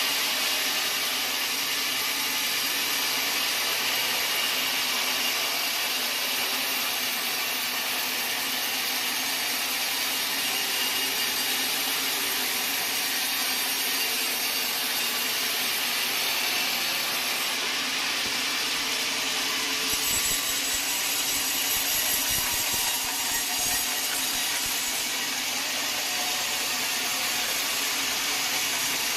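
Sawmill saw cutting through a log: a steady, high, noisy cutting sound with no let-up, shifting slightly about two-thirds of the way through.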